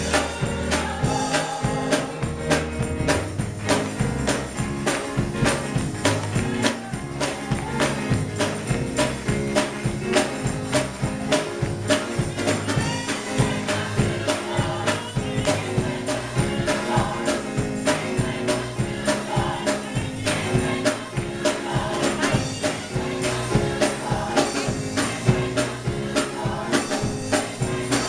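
Gospel music: a church choir singing over instrumental accompaniment with a steady beat.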